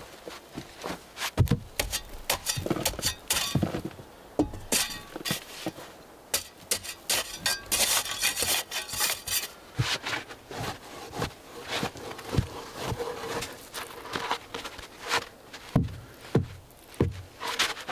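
A spade digging into sandy soil: a run of irregular scrapes and dull knocks as the blade cuts and scrapes at the earth wall and earth is shovelled out.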